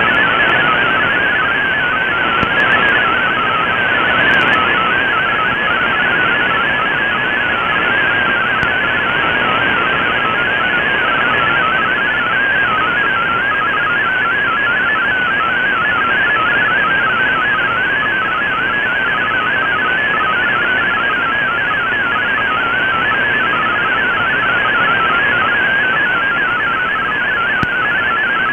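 MFSK32 digital text signal from a shortwave broadcast, heard through an Icom IC-R8600 receiver: a stream of fast, warbling tones hopping within a narrow band over steady shortwave hiss.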